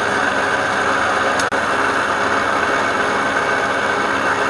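A machine motor running steadily at a constant speed, with a brief dropout about a second and a half in.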